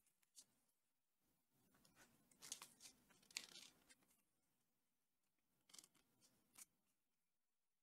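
Near silence with faint rustling and light clicks of yarn being worked on wooden knitting needles, in one spell from about two to four seconds in and a shorter one around six seconds.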